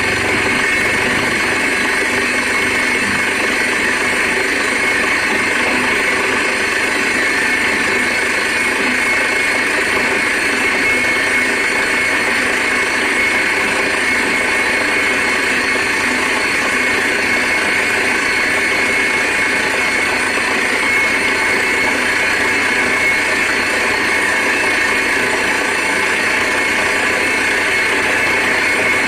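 Borewell drilling rig running steadily while drilling through rock: a loud, unbroken din of the rig's engine and air compressor, with compressed air blasting rock dust up out of the bore.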